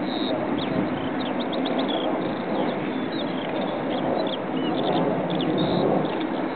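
Steady distant jet engine noise from a Boeing 747-8's four GEnx engines at low thrust as the airliner taxis, with small birds chirping over it.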